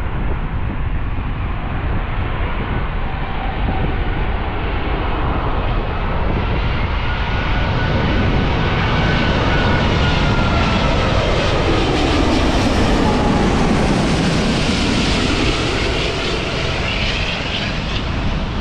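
Airbus A380-842's four Rolls-Royce Trent 900 turbofans on final approach, passing low overhead. The jet sound builds, peaks about twelve seconds in, and its whine drops in pitch as the aircraft goes by.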